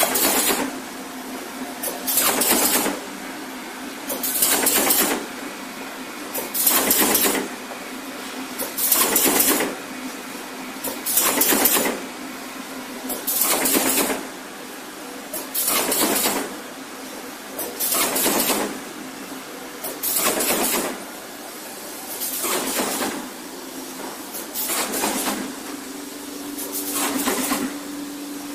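Corrugated paperboard partition machine running: a steady hum, with a short burst of noise, under a second long, repeating evenly about every two seconds as the machine cycles.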